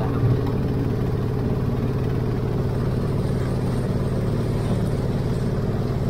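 Boat engine running steadily while the boat is under way, an even low drone with no change in speed.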